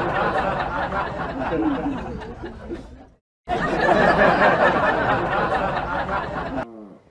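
A laugh track: a dense crowd laughing, fading then cutting off about three seconds in, then starting over and cutting off abruptly near the end.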